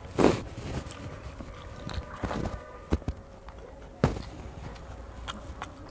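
Eating by hand: fingers mixing rice on a plate and a boy chewing, with a few short knocks and clicks, the loudest just after the start.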